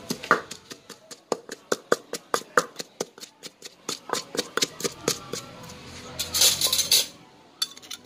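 Rapid, irregular knocks, about four or five a second, of food being worked by hand in a kitchen, then a brief hiss near the end.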